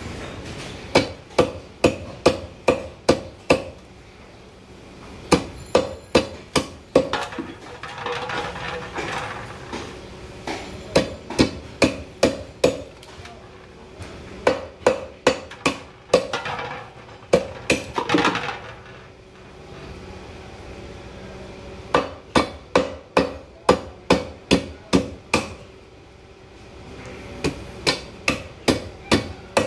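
Runs of sharp knocks, about three a second with short pauses between runs, from a large carp being worked hard against a fixed curved fish-cutting blade on a wooden block.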